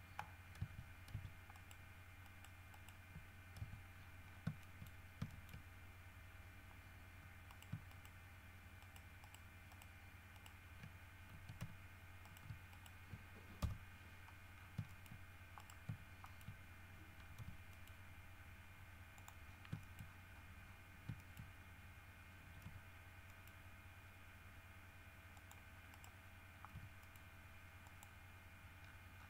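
Faint, irregular clicks of a computer mouse and keyboard, one sharper click about halfway through, over a steady low electrical hum.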